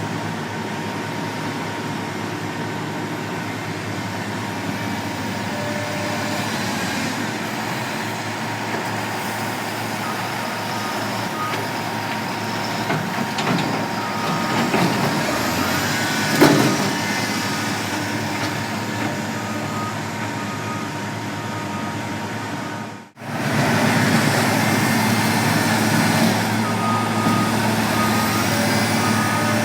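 Heavy construction machinery engine running steadily, with a reversing alarm beeping at a regular pace from about a third of the way in. A single loud knock about halfway through, and the sound cuts out for an instant before resuming.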